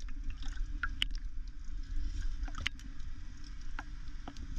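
Water lapping and gurgling around a half-submerged camera, heard muffled, over a steady low rumble, with scattered sharp clicks.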